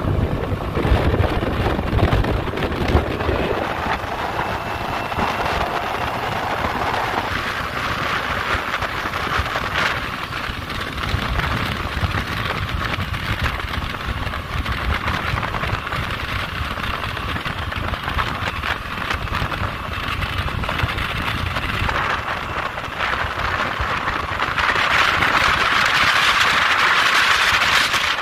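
Honda Navi scooter's small 109cc single-cylinder engine running as it is ridden along, mixed with wind rushing over the microphone. The wind hiss grows louder near the end.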